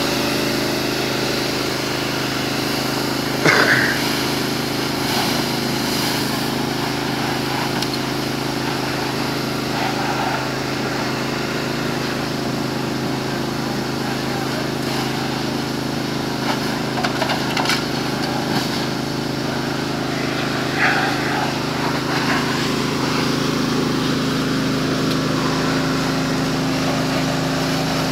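Fire apparatus engine running steadily at pumping speed, supplying water to a hose line, with a few brief shouts over it.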